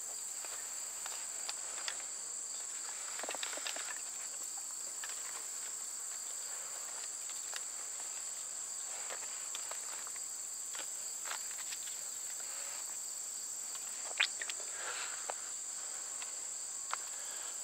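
Small dry sticks rustling and clicking lightly as they are worked one by one into a teepee fire lay, with the sharpest tick about 14 seconds in. Under it runs a steady high-pitched insect drone.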